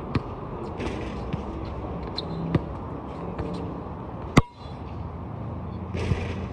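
A basketball bouncing on an outdoor court, a few separate thuds about a second or more apart, with one much louder sharp bang a little past four seconds in. Faint voices and a steady low outdoor rumble underneath.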